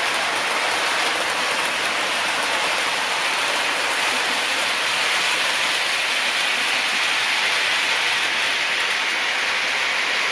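OO gauge model trains running on the track, a steady, even hiss from wheels on rail and the locomotive motors.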